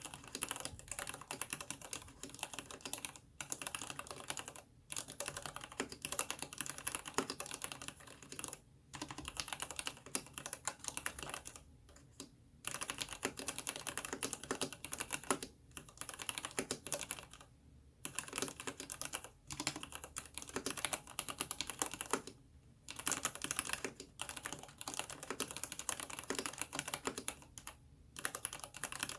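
Continuous fast typing on an aluminium-cased Ninja87 mechanical keyboard with new-revision Cherry MX Black linear switches and Cherry-profile PBT keycaps: a dense run of key clacks, broken by brief pauses now and then.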